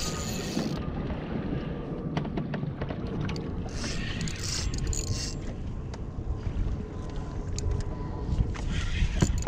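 Wind rumbling on the microphone and water noise around a small boat at sea, with scattered light ticks and a few short spells of hiss at the start, around four seconds in and near the end.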